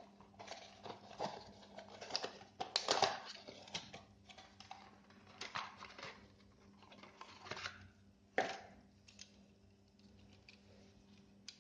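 Hands handling PC components: scattered small clicks, taps and rustles at irregular intervals, with a louder knock about eight and a half seconds in, over a faint steady hum.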